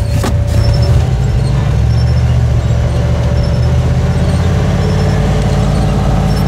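Turbocharged Suburban's engine running steadily under load while driving through snow, heard from inside the cab as a low drone with a faint steady whine above it. A brief click comes just after the start.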